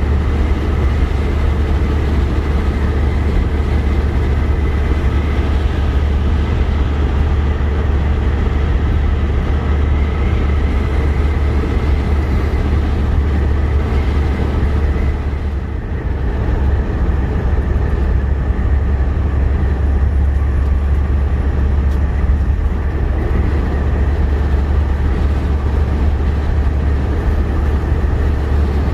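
Semi-truck's diesel engine and road noise, a steady low drone while driving along the highway.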